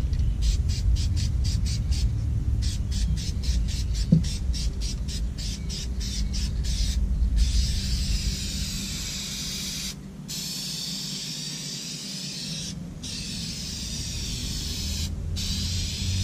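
An aerosol spray can being shaken, its mixing ball rattling in quick, even clicks for several seconds. Then the can is sprayed into the truck's open rocker panel in long hissing bursts, with short breaks between them, over a low rumble.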